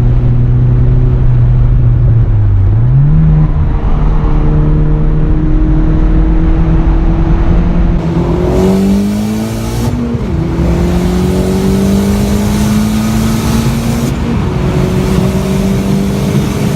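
Turbocharged VW 1.8T four-cylinder accelerating hard through the gears. The engine note climbs steadily in pitch in each gear, with a quick jump in revs early on and sudden drops at two upshifts later.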